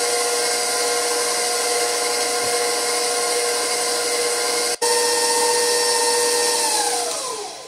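Electric bowl-lift stand mixer running at a steady speed with a high motor whine, beating butter and sugar into frosting. It cuts out for an instant just before the middle, then is switched off near the end, its whine falling in pitch as it spins down.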